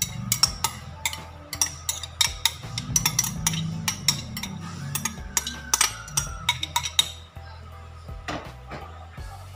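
Metal spoon clinking and scraping against a glass bowl and a plate as a chopped salad is spooned out, many quick clinks that thin out after about seven seconds, over background music.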